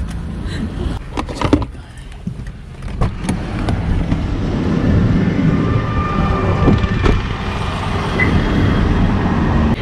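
A few clicks and knocks as a car door is opened from inside, then steady road traffic noise once outside the car, louder from about halfway through.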